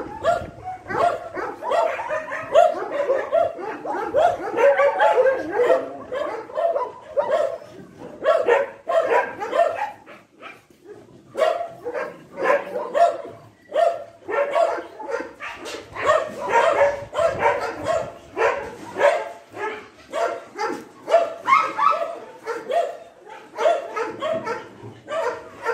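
Dogs barking over and over in short, overlapping barks, with a brief lull about ten seconds in.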